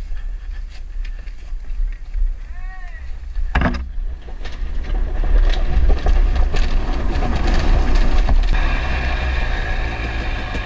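Husqvarna TX300 two-stroke dirt bike engine running while riding a trail, under heavy wind rumble on the helmet-camera microphone, with a sharp knock about a third of the way in. Near the end the engine settles into a steady drone.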